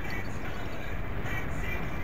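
Steady wind and road noise from riding a bicycle, picked up by a small action camera on the moving bike: a dense low rumble with a hiss on top.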